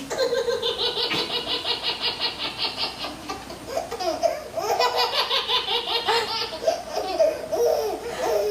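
Baby laughing hard in long fits of rapid, pulsing laughter, breaking off briefly around three seconds in and then starting up again.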